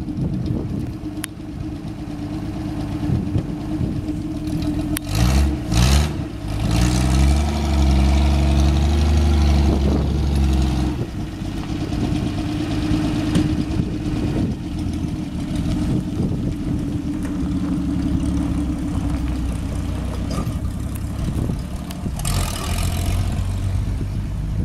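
1954 Ford F100's original 223 cubic-inch straight-six running as the pickup is driven off. About five seconds in, the revs climb and the engine gets louder for several seconds, then settles back to a steady, lower run.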